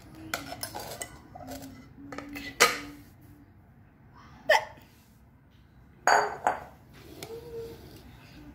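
Glass bowl and ceramic plate clinking and knocking together as the bowl is turned upside down to unmould a set agar-agar jelly: a string of sharp clinks, the loudest about two and a half seconds in, with more around four and a half and six seconds.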